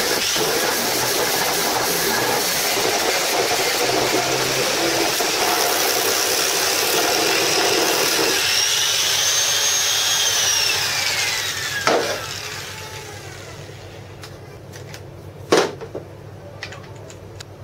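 Angle grinder with a sandpaper sanding-drum attachment running and sanding a wooden batten for about eight seconds. Its high whine then rises as the sanding stops and falls away as the motor winds down, and a sharp knock comes near the end.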